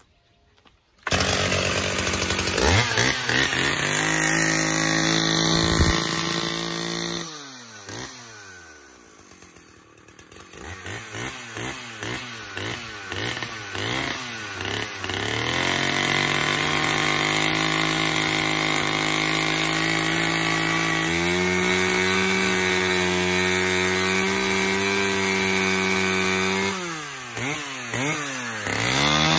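Two-stroke petrol chainsaw running: it comes in suddenly about a second in at high revs, drops back around the eighth second, is blipped in a quick run of revs, then held at high revs while it cuts into a cardboard parcel, rising a step further about two-thirds through and dipping briefly near the end.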